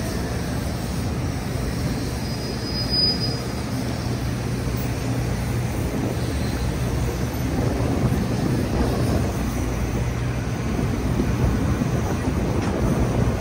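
Downtown street traffic: a city bus and cars running, a steady low hum under a rushing noise that grows a little louder about halfway through.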